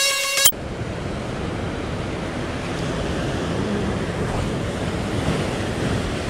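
Heavy surf breaking and washing over a sea-rock ledge in a steady rush. A plucked-string music intro cuts off suddenly about half a second in.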